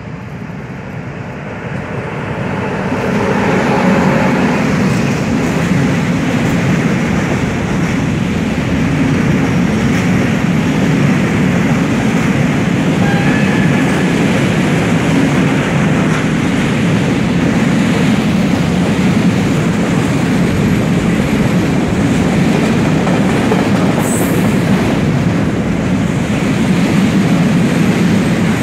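Freight train of container flat wagons, hauled by a class 441 electric locomotive, rolling past at close range. The wheels on the rails make a steady, loud rumble that builds over the first few seconds and then holds, with a brief high squeak about two-thirds of the way through.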